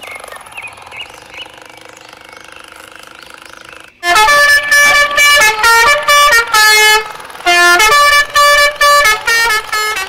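Electronic musical horn playing a loud tune: a quick run of horn-like pitched notes stepping up and down, starting about four seconds in with a short break midway. Before it there is only a faint low background.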